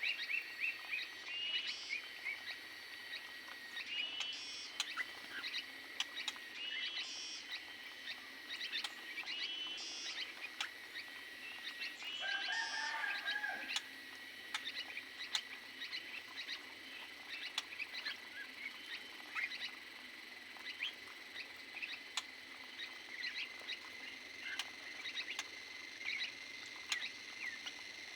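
Small aviary birds chirping in short repeated calls, with many light ticks and scratches among them; the chirps come thickly for the first half and thin out after, leaving mostly the ticks, over a steady thin high tone.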